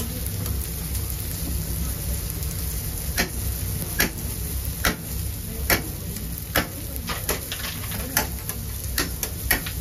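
A metal blade clicking against a steel grill grate as grilled fish fillets are cut and lifted on it. Sharp clicks come about once a second from about three seconds in, over a steady hiss and low rumble from the grill.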